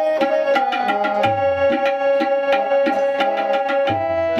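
Devotional bhajan music: a tabla keeps a steady beat, with a deep bass stroke about every two and a half seconds, under a melody of held notes that step from pitch to pitch.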